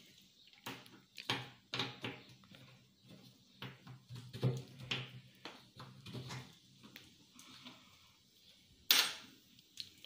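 Clicks and knocks of a metal electrical control panel's door and latch being worked open, with a low steady hum underneath for the first half and one sharp loud clack about nine seconds in.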